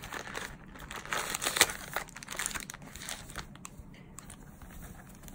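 Plastic-wrapped travel amenity packets crinkling and rustling as they are taken out of a pouch and laid down by hand. There is irregular handling noise throughout, with one sharper knock about a second and a half in.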